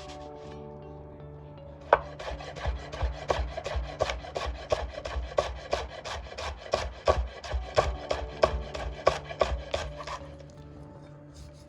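Rhythmic hand food-prep strokes against a wooden board, about three a second, starting about two seconds in and stopping near the end.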